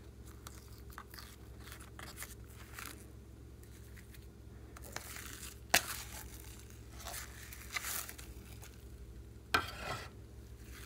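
Slime handling: soft rustles and crinkles of a plastic piping bag and clay pieces over a glass tray, with scattered sharp clicks and taps. Near the end a louder wet crackle comes as a blob of slime is pressed into the tray.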